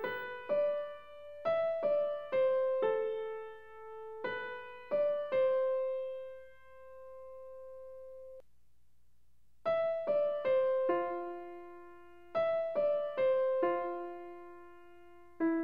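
Background piano music: a slow melody of single struck notes, each ringing and fading. The notes cut off abruptly about halfway through and start again a second later.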